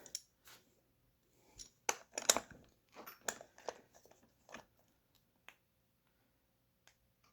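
Irregular small clicks and scrapes of metal parts being handled as the wheel nut is threaded back onto the RC truck's wheel hub, dying away about two thirds of the way through.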